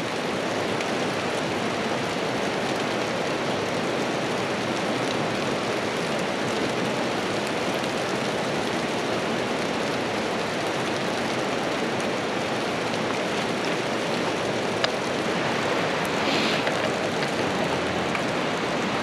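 Steady rain falling, with a few separate drops tapping.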